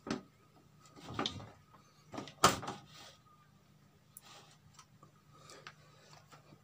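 A few handling knocks and scrapes as tools and the open TV's backlight panel are moved about, the loudest about two and a half seconds in, followed by fainter clicks.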